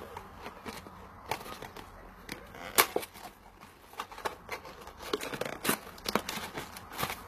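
A tea packet being torn open and crinkled by hand: irregular sharp crackles and rustles of packaging.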